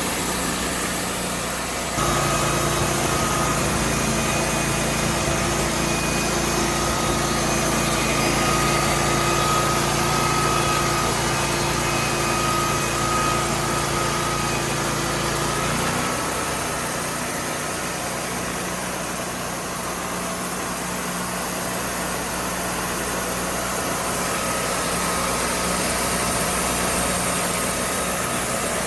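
Wood-Mizer sawmill engine running steadily. Its tone shifts abruptly about two seconds in and changes back about halfway through.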